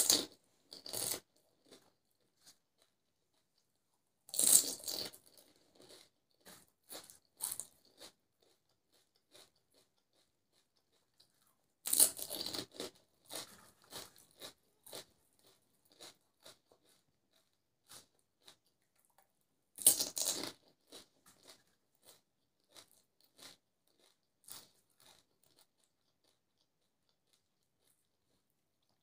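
Golgappa (pani puri) crunching as the crisp hollow fried shells are bitten: four loud crunches several seconds apart, each followed by a few seconds of chewing that fades away.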